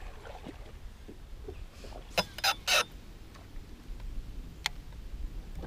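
Fishing gear handled on a boat deck: three quick clattering knocks about two seconds in, then a single sharp click near the end, over a steady low rumble.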